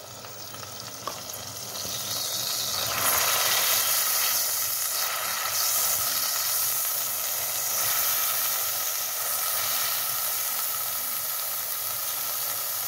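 A boiled fly agaric mushroom cap frying in oil in a steel saucepan. The sizzle grows louder over the first three seconds, then holds steady.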